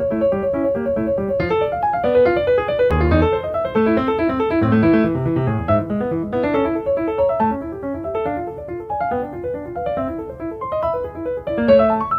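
Background piano music: a steady stream of quick notes.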